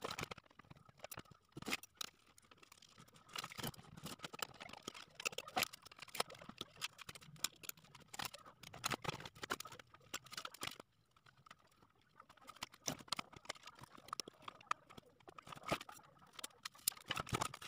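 Fast, irregular clicking, tapping and rattling as hands pull connectors, wires and circuit boards out of an inverter welder's metal case, sped up. The clicks briefly stop about two thirds of the way in.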